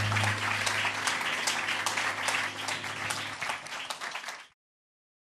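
Audience clapping at the end of a song, with a low held note ringing under it for the first three seconds or so. The applause fades and cuts off to silence about four and a half seconds in.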